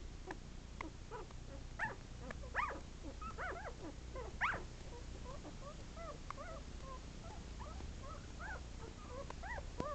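Several 11-day-old Sheltie puppies squeaking: many short, high, arching squeaks one after another, faint, with a few louder ones about two and four and a half seconds in.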